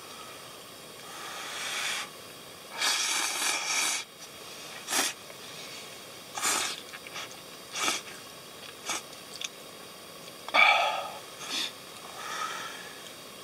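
A person slurping instant noodles from a cup, in a string of short sucking slurps with a longer one about three seconds in and the loudest near the end.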